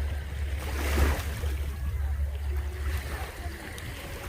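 Ocean waves washing in under a steady low rumble of wind on the microphone, with a louder surge about a second in.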